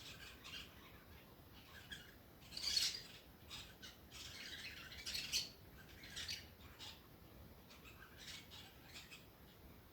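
Birds chirping and squawking in short, high, irregular calls, the loudest about three and five seconds in.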